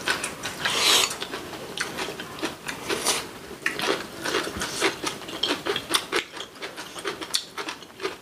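Close-miked eating sounds: chewing and wet mouth smacks, a quick irregular run of short crunchy clicks, louder in the first second.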